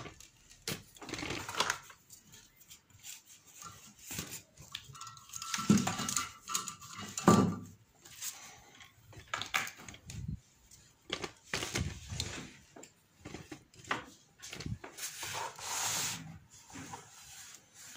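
Irregular clicks, knocks and rustles of an LED TV panel and its plastic cabinet being handled, with two louder sharp knocks about six and seven seconds in.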